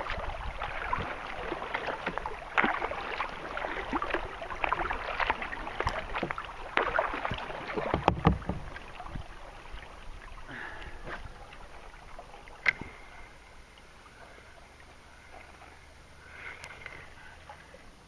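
Water splashing and knocking around a kayak, busy with many small knocks for the first half and a heavy thump about eight seconds in, then quieter, with a single sharp click a few seconds later.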